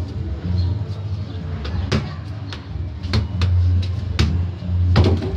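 A football being kicked and bouncing off a brick wall and a concrete floor: several sharp thuds, the loudest near the end. A low, pulsing drone runs underneath.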